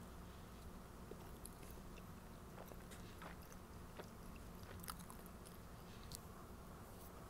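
Near silence: low steady room hum with a handful of faint, scattered soft clicks.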